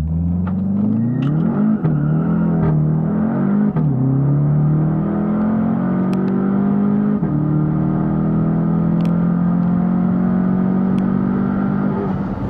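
Modified Volkswagen Jetta GLI's turbocharged four-cylinder at full throttle, heard from inside the cabin. It revs up through the gears with three upshifts, about 2, 4 and 7 seconds in, the last gear pulling more slowly.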